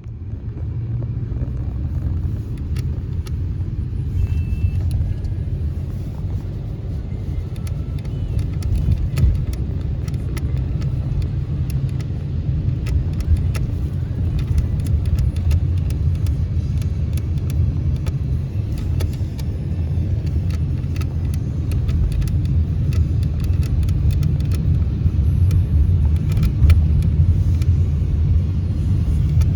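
Car driving: a steady low engine and road rumble, with scattered faint clicks.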